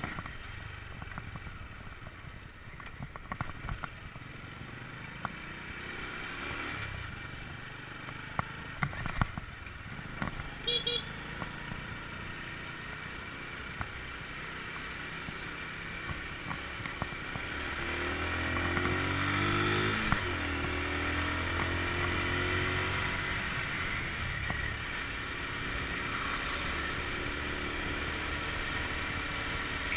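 Honda scooter engine running while riding through city traffic; about two-thirds of the way through it speeds up with a rising engine note, then holds steady and a little louder. A few sharp knocks and a brief run of high beeps come near the middle.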